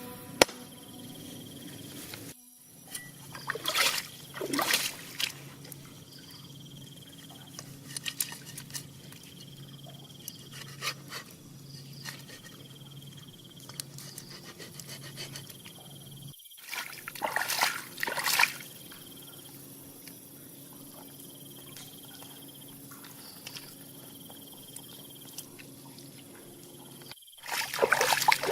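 Insects chirring steadily, with a few short bouts of water splashing and trickling. The sound drops out briefly twice.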